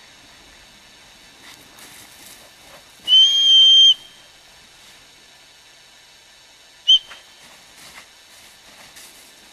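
Gundog whistle blown to a working springer spaniel: one long steady blast of about a second, about three seconds in, then a single short pip about four seconds later.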